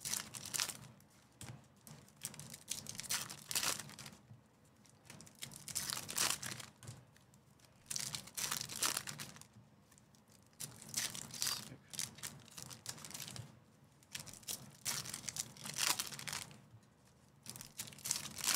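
Foil wrappers of Topps Chrome baseball card packs being torn open and crinkled by hand, in short irregular rustling bursts every second or two.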